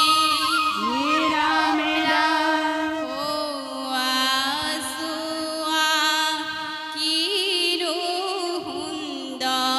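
Assamese dihanam devotional music: a bamboo flute and women's voices carry a wavering, ornamented melody over barrel-drum accompaniment.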